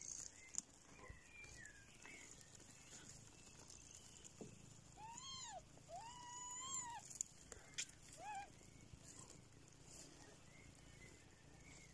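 Kittens mewing: three high, short mews about halfway through, each rising and falling in pitch, the middle one the longest.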